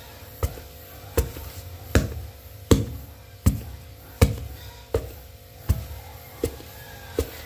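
A wooden pestle pounding a soft dough of rice flour, grated coconut and palm sugar in a mortar: ten dull thuds in a steady rhythm, about one every three-quarters of a second.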